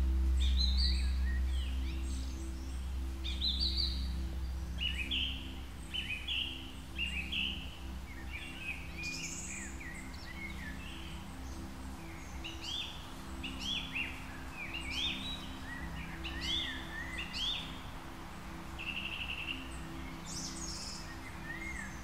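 Small songbirds chirping and twittering, many short calls one after another, over a low steady hum.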